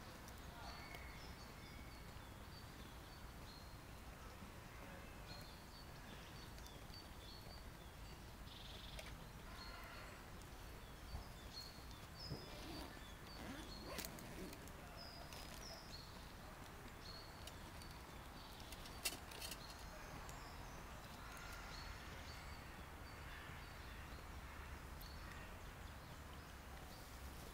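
Faint woodland birdsong: many short, high chirps and calls from small birds, over a steady low background rumble, with a few sharp clicks.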